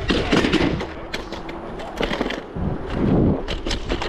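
Electric scooter clattering and rattling as it rolls over rough pavement and road joints: a rapid, irregular run of sharp knocks.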